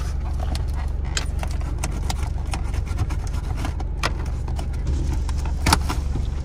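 Steady low hum of a car's running engine heard inside the cabin, over small clicks and crackles of a taped cardboard box being picked open by hand, with one sharper snap of the cardboard a little before the end.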